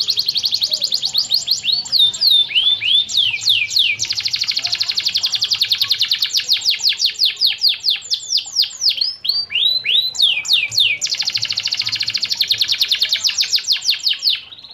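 Domestic canary singing a fast, high trilling song: long runs of rapidly repeated notes, broken twice by slower downward-swooping notes, stopping near the end.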